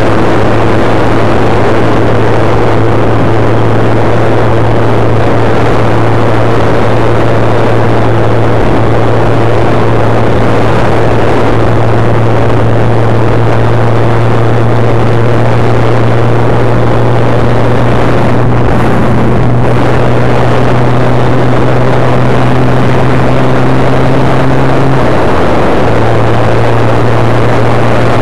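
Suzuki GSX-R 1100 inline-four engine running steadily at road speed, heard from the rider's position under heavy wind rush on the microphone. The engine note dips briefly about 25 seconds in, then carries on.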